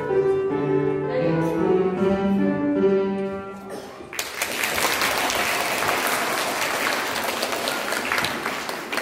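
Upright piano playing the closing notes of a piece, ending a little under four seconds in. Audience applause starts right after and continues.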